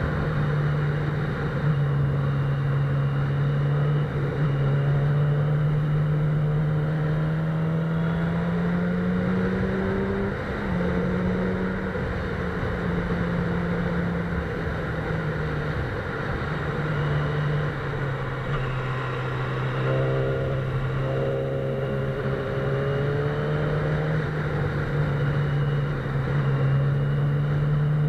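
Sport motorcycle engine running under way, its note climbing slowly, dropping about ten seconds in and again just past halfway, then climbing once more as the throttle is opened and eased. Wind and road noise run under it.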